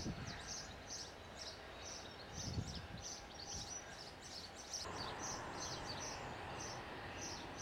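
A small bird chirping high and quick, two to three short chirps a second, over a steady hiss of distant airport and jet noise that gets louder about five seconds in.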